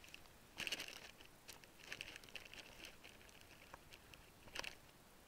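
Faint rustling and crackling from movement close to the microphone. Short, louder scuffs come about half a second in, around two seconds in, and shortly before the end.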